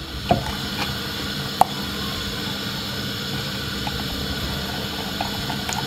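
Wooden spoon stirring a cornmeal, oats and milk mixture in a glass measuring jug, with a few light knocks of the spoon against the glass over a steady background hum.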